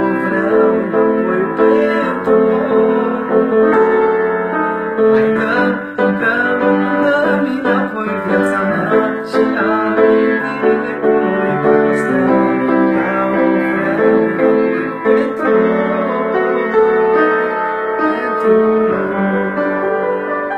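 Upright piano played solo: a melody over full, sustained chords.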